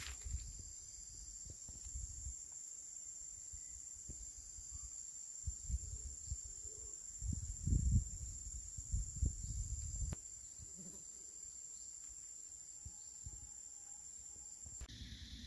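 Insects droning steadily at a high, even pitch, with irregular low rumbles through the middle; the drone cuts off suddenly near the end.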